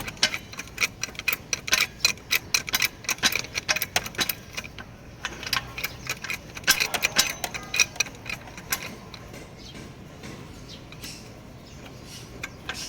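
A jack being worked to lift a BMW X5 E53: a rapid, uneven run of metallic clicks and ticks, thinning out over the last few seconds.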